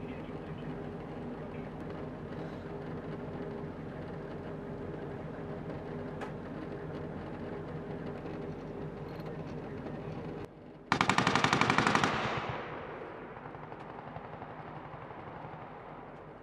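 An Oshkosh JLTV's diesel engine running steadily. After a cut about ten seconds in comes a loud burst of vehicle-mounted machine-gun fire lasting about a second, its echo rolling away over the next few seconds.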